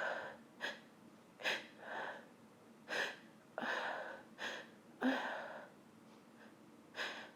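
A woman breathing unevenly after a pepper-induced sneeze: five short, sharp gasps with breathy exhales between them, as she fights a nose tickle and holds back the next sneeze.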